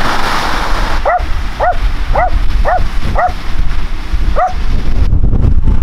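A dog barking six short, high barks about half a second apart, over a loud steady rush of wind and splashing floodwater.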